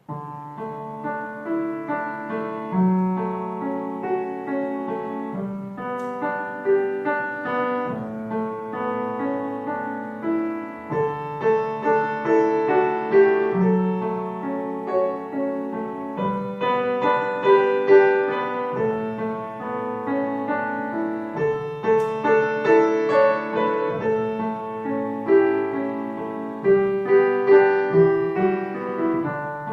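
Solo piano music: a steady flow of sustained notes and chords, with a few louder swells.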